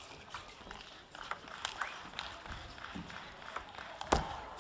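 Table tennis rally: the celluloid ball clicking sharply off the rackets and the table in quick, uneven succession, with a louder thump about four seconds in.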